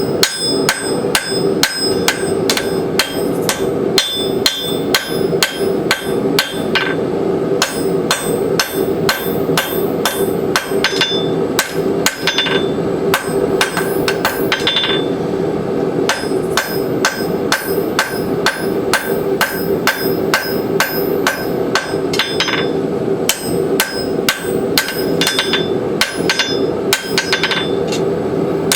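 Hand hammer striking the hot steel of a horse hoof rasp on an anvil, drawing the metal down, about two to three ringing blows a second with a few short pauses. A steady hum runs underneath.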